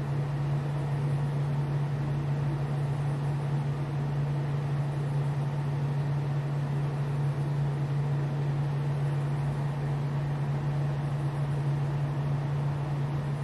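A steady low mechanical hum over an even hiss, unchanging throughout.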